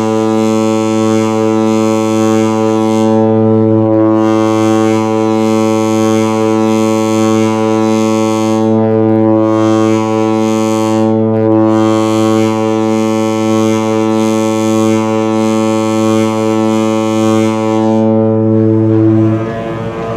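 A ship's typhon air horn sounding one long, loud, steady blast on a single low note, cutting off about a second before the end.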